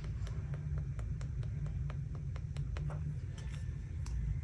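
Light, sharp taps of a pen or brush tip on paper, coming irregularly at about three or four a second as dots are dabbed on, over a steady low hum.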